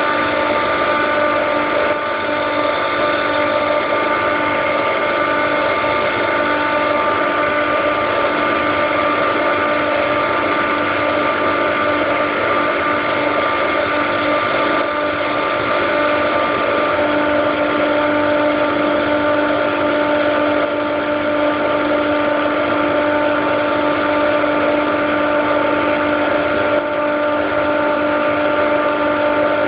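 Compressor of a Daikin/McQuay EWLDJ235-SS chiller running steadily, a loud hum of several evenly spaced pitched tones over a noisy rush, with the lowest tone growing stronger a little past halfway. This is the strange sound the owner is questioning.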